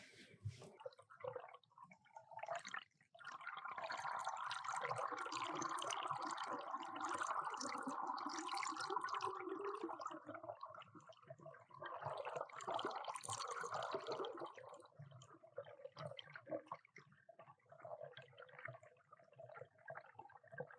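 Water splashing and dripping around the kayak, in two stretches: a long one from about three to ten seconds in, and a shorter one later.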